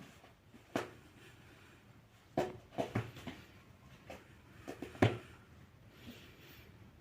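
A series of short, sharp knocks and clunks as objects are handled and set down. The loudest comes about five seconds in.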